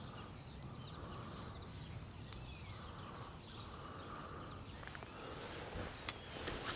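Quiet riverside ambience: a low steady background rumble with a few faint, short bird chirps scattered through it.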